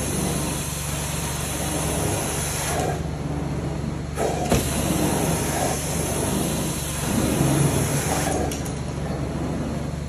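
Hot-water extraction carpet-cleaning wand (Hydro-Force wand) running steady suction across wet carpet, with a low machine hum under a rushing hiss. The hiss drops away briefly around three seconds in and again near the end as the strokes change.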